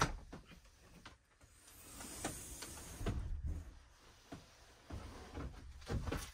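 The rear door of a truck camper being unlatched and pushed up open, with a run of clicks and knocks, the loudest at the very start. Near the end come more bumps and rustling as a person climbs out through the doorway.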